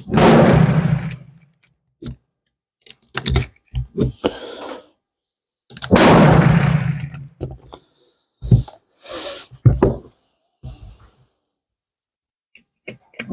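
Two pistol shots about six seconds apart, each loud and sharp with a ringing tail that dies away over a second or so. Lighter clicks and knocks come in between.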